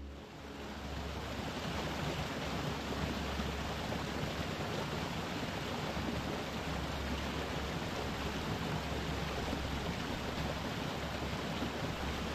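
Small waterfall on a hillside beck, water splashing and rushing steadily over rocks, fading in over the first second or so.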